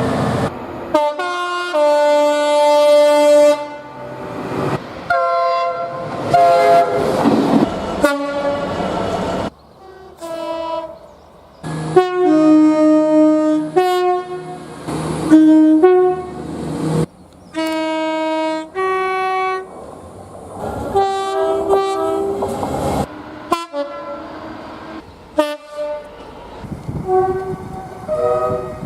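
A string of train horn blasts from different trains, cut one after another: short toots and blasts held for a second or two, at changing pitches, each breaking off abruptly at an edit.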